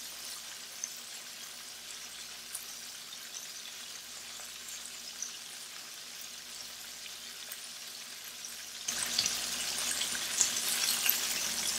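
Battered chicken pieces deep-frying in oil heated to about 350°F: a steady sizzling hiss with scattered small crackles. About nine seconds in it suddenly grows louder as a slotted spoon moves the pieces about in the oil.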